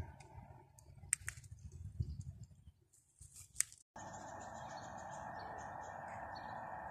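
Faint outdoor ambience at a railway level crossing, broken by a few sharp clicks. About four seconds in it changes abruptly to a steady faint hum and hiss.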